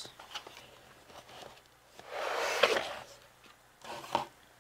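A cardboard gift box being handled as it is unwrapped and opened. There is a brief scraping rustle about two seconds in, then a couple of light knocks near the end.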